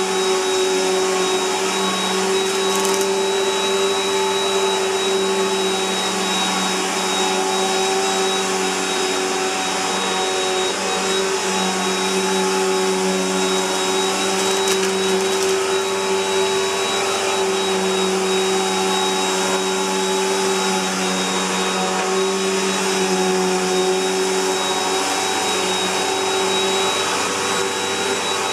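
Bissell PowerLifter Bagged Pet upright vacuum cleaner running steadily, its motor giving a constant high whine over a hum.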